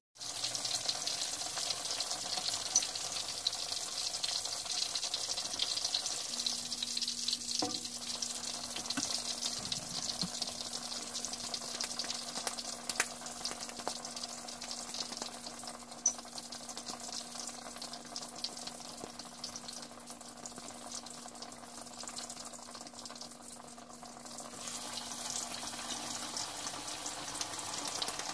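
Chapli kebab patties sizzling as they shallow-fry in hot oil in a cast-iron skillet: a steady crackling hiss with a few light clicks. The sizzle grows louder again near the end as a fresh patty goes into the oil.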